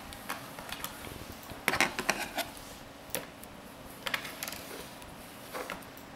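Scattered light clicks and taps of small hard objects being handled, with a short cluster about two seconds in and a few single clicks after.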